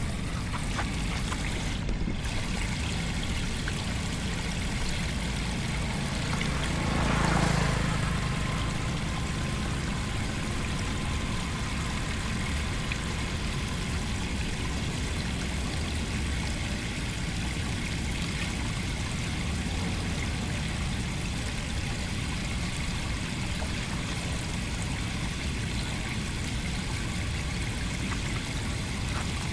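Steady rushing of flowing floodwater, with one brief louder swell about seven seconds in.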